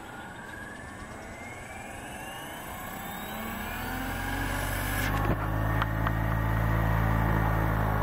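SAB Goblin 770 electric RC helicopter spooling up on the ground: the motor and gear whine rises in pitch and grows louder over the first four seconds, then settles into a steady rotor hum at head speed. Two short clicks come about halfway through.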